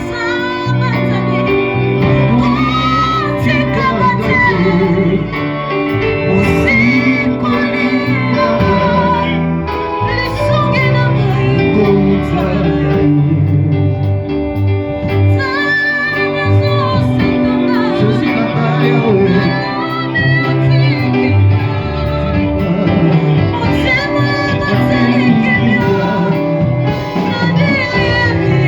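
Worship music in a church service: singing led by female voices over a steady instrumental backing, continuous throughout.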